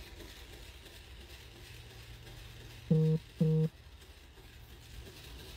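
Two short, loud beeps of the same steady pitch, one right after the other, about three seconds in, over a quiet background.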